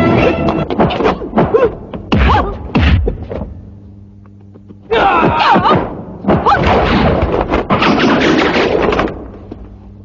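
Kung-fu fight sound effects: a quick flurry of punch and kick thuds and whacks for a few seconds, a short lull, then a second longer flurry of blows.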